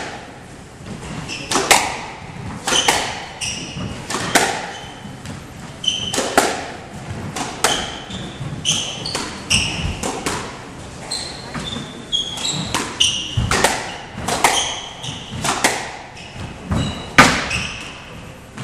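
A squash rally: the ball cracks off the rackets and the court walls about once every second or so, with short, high squeaks from the players' shoes on the wooden floor between the hits, in a hard, echoing court.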